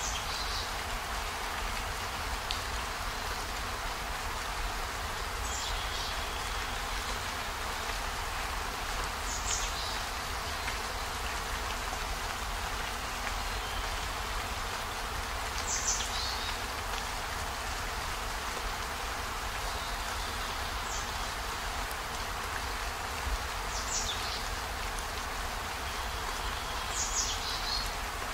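Steady rain falling, with a brief high-pitched sound recurring every few seconds, about seven times.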